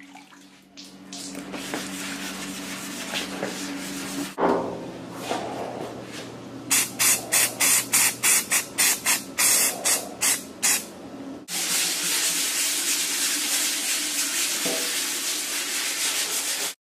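Paint spraying hiss: a steady spray over a low hum, then a quick run of short spurts, two or three a second, then a long even spray that cuts off suddenly near the end.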